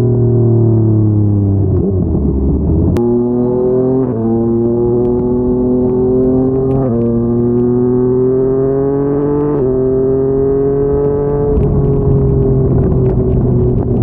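Yamaha MT-09's inline three-cylinder engine through a Yoshimura R55 slip-on exhaust, heard from the rider's seat. It eases off for about two seconds, then accelerates hard through the gears: the pitch climbs, drops briefly at upshifts about four and seven seconds in, and settles near the end.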